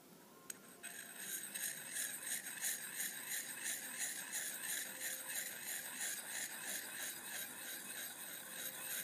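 Round Lansky sharpening rod rubbed in quick repeated strokes along the chisel-ground steel edge of an Emerson Roadhouse knife near its tanto tip: a steady, rhythmic scraping of the edge being honed. It starts with a light click about a second in.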